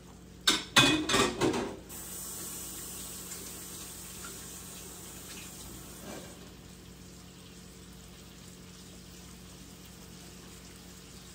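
Floured beef chunks browning in hot oil: a brief burst of clattering in the first two seconds, then a steady sizzle that slowly dies down.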